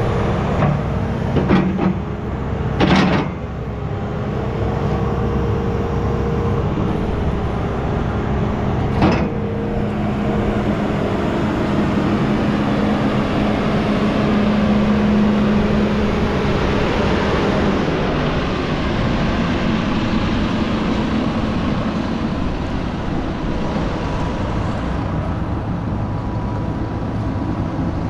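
John Deere 180G excavator's diesel engine idling with a steady hum, loudest toward the middle. There are a few sharp knocks in the first three seconds and one about nine seconds in.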